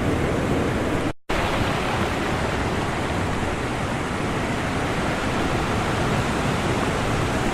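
Ocean surf breaking on the shore: a steady, dense rush of wave wash. It drops out for a split second about a second in, then carries on unchanged.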